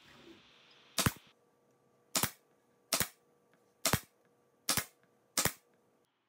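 Pneumatic staple gun firing six times, sharp shots roughly a second apart, driving staples through the shade fabric into a wooden mounting board.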